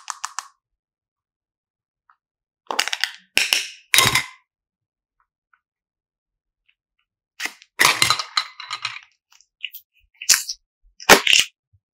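Thin clear plastic hexagonal candy box cracking and clicking as it is handled, opened and squeezed with clay packed inside, in several short sharp bursts about 3 to 4 seconds apart.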